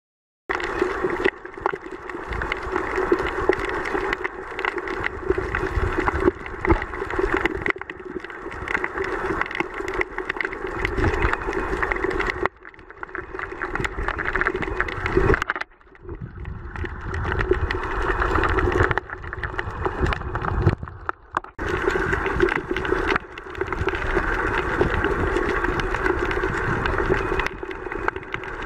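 Underwater recording of a steady motor drone with water noise, typical of a boat engine carrying through the water, dipping briefly a few times.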